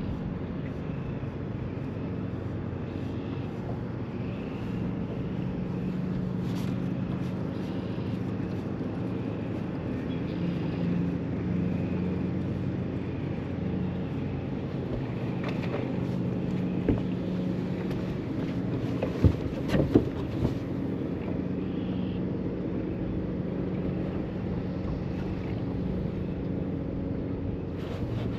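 Boat motor running steadily with an even hum, with a few sharp knocks about two-thirds of the way through.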